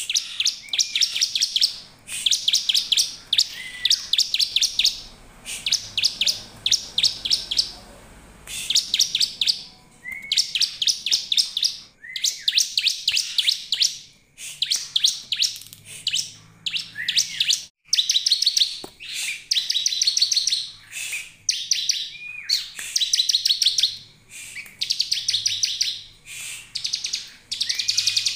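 Bar-winged prinia (ciblek) calling: fast trains of high chirps, each about a second long, repeated over and over with short gaps. Some trains open with a lower rising note.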